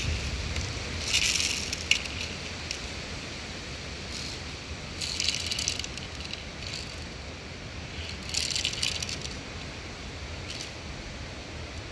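Plastic airsoft pistol rattling in three short bursts as it is shaken or worked, with a single sharp click about two seconds in; the gun is acting up ('doing something weird').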